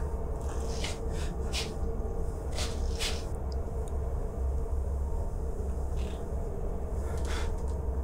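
Steady low rumbling drone with a constant faint hum above it, crossed about six times by short hissing sounds.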